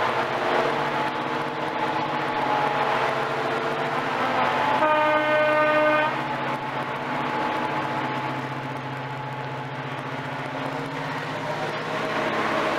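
Class 55 Deltic diesel locomotive pulling away, its two Napier Deltic two-stroke engines running with a steady hum. Its horn sounds once, about five seconds in, for about a second, and is the loudest thing heard.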